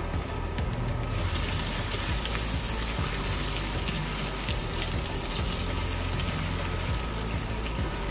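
Gyro meat slices sizzling in hot oil in a cast-iron skillet, the sizzle growing louder about a second in as the slices are turned with tongs.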